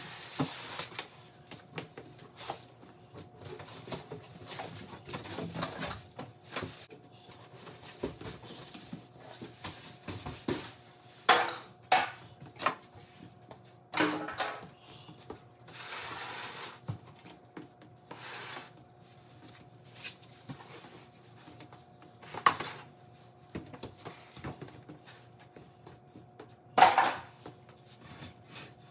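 Handling noise from unpacking and moving a boxed ice maker: irregular rustling and scraping of cardboard and packing material, with scattered clicks and several sharp louder knocks as the metal cabinet is handled, over a faint steady hum.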